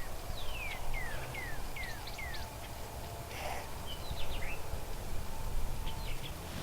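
A wild songbird calling: a quick run of short notes, each sliding downward, about three a second, followed by a few scattered chirps, over a steady low outdoor rumble.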